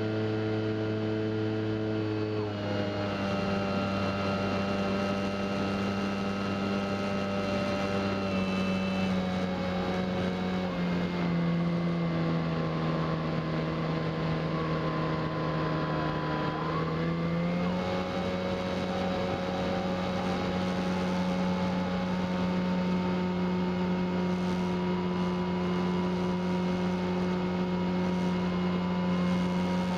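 Electric outrunner motor (HeadsUpRC 4248-800) turning a 13x6.5 APC propeller on an RC L-4 Grasshopper model, whining steadily in flight, heard from on board the plane. Its pitch steps down a couple of seconds in, drops lower around the middle, and rises back about two thirds of the way through.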